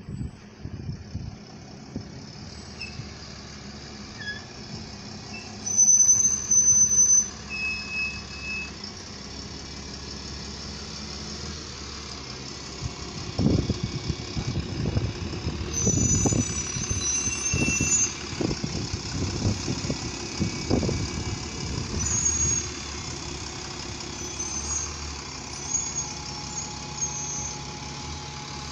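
Diesel double-decker bus running as it pulls slowly through the station, with short high squeals about six seconds in and again around sixteen seconds.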